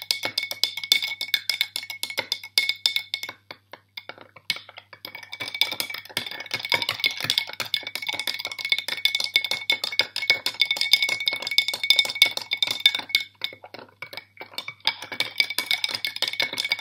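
Teaspoon stirring a thick glitter-glue and shampoo mixture in a glass jar, clinking rapidly against the glass so that the jar rings. The stirring stops briefly twice.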